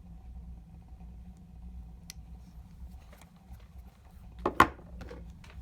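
Faint clicks of a Damascus steel folding knife and its holster being handled, then two sharp snaps close together about four and a half seconds in, followed by a few light clicks, over a steady low hum.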